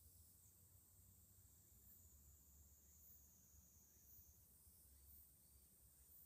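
Near silence: a faint low hum and a faint, steady high-pitched hiss.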